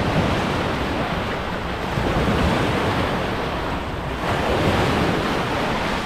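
Wave pool surf washing up onto the sandy shore, with wind rumbling on the microphone.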